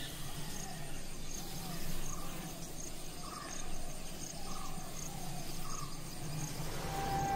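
Insects chirping in an even rhythm, about one and a half chirps a second, over a low steady hum. A sustained musical tone enters near the end.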